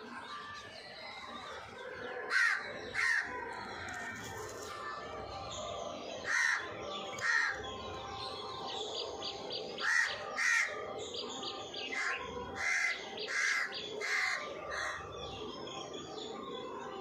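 Crow cawing in short harsh calls: two pairs, another pair, then a run of five about one every 0.7 s. Small birds chirp faintly and steadily behind.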